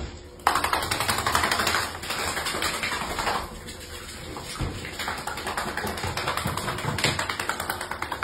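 A boxer dog scuffling and scratching at a shag bath mat on a hard floor. The noise is a rapid run of scratches and claw clicks, starting about half a second in and rising and falling in loudness.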